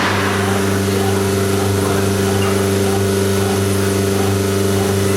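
TR 408 TK CNC cutting machine with a tangential knife running, giving a steady, even hum.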